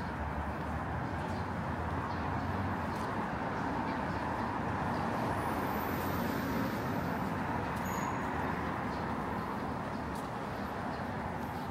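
City street traffic: a steady wash of passing vehicles that swells a little midway.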